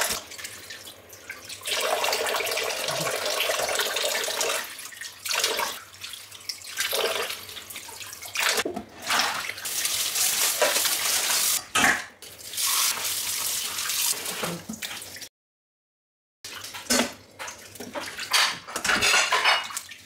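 Kitchen tap running into a stainless steel bowl while pieces of cow foot are rubbed and rinsed under the stream, the water splashing and changing as the hands move the meat. The sound drops out for about a second two-thirds of the way through.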